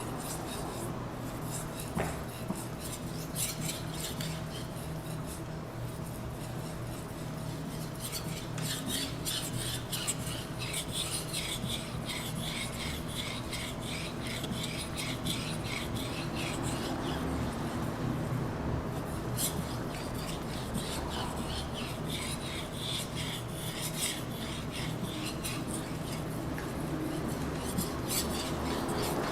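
Blue-steel Japanese chef knife blade stroked back and forth on a whetstone: a continuous run of short rasping strokes of steel on stone as the edge is sharpened.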